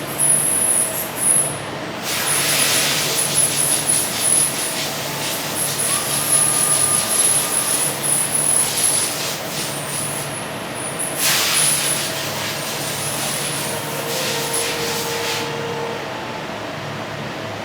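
Machinery in an automated machining cell running with a steady hum and an intermittent high whine, broken twice by loud hissing bursts of compressed air, about two seconds in and again about eleven seconds in.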